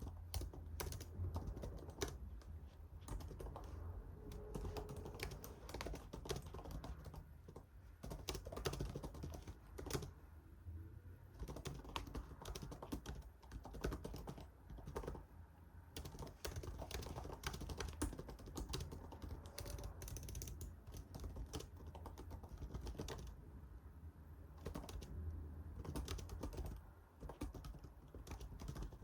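Typing on a computer keyboard: irregular runs of key clicks, several a second, with short pauses between runs.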